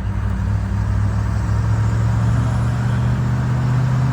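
Land Rover engine running steadily under way, with a constant drone and road noise.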